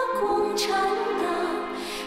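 A slow song: a singer holds long notes over instrumental accompaniment.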